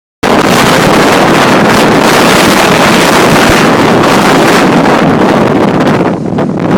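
Strong, gusty post-typhoon wind buffeting the microphone, a loud rushing noise that eases briefly near the end before picking up again.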